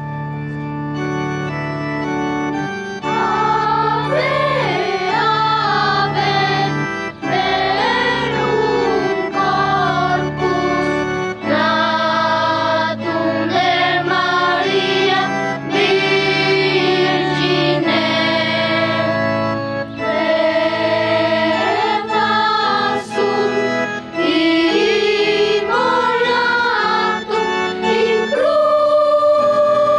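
Children's choir singing a melody in phrases over long held low chords.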